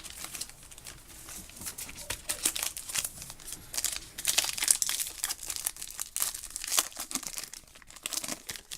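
Crinkling and tearing of a trading card pack wrapper being torn open by hand, an irregular crackle that is busiest in the middle of the stretch.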